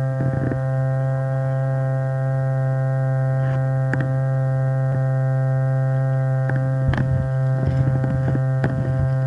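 Loud, steady electrical hum with a ladder of overtones, unchanging throughout. A few sharp clicks stand out over it.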